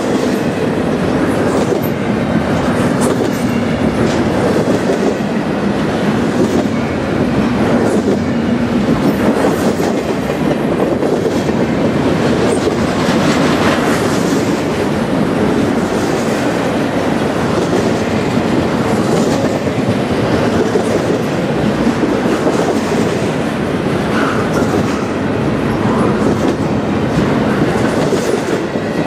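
Double-stack container well cars of a freight train rolling past close by: a loud, steady rumble of steel wheels on rail with clicking as the wheels pass over rail joints.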